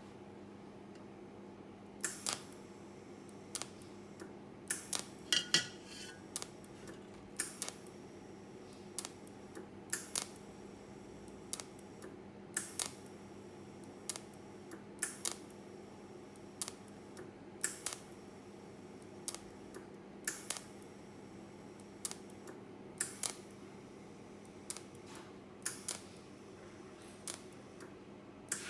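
Markweld WS-250 cold TIG welder firing single spot welds at 95 A: a short, sharp snap of arc for each press of the torch trigger, about one every second and a half, often in close pairs, over a steady low hum.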